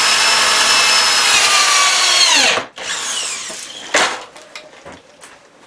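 Power drill driving a screw through a metal deck bracket into wood: a steady high whine for about two and a half seconds that winds down in pitch as it stops, then a second, shorter run that also winds down, and a sharp click about four seconds in.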